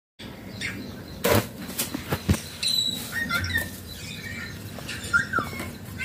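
A rose-ringed parakeet pecking at a mobile phone: a few sharp taps and knocks in the first couple of seconds, then short rising and falling chirps.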